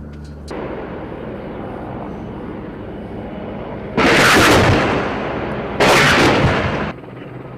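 Two loud weapon blasts about two seconds apart over a steady rumble, each a sudden rush of noise lasting a second or so; the second cuts off abruptly.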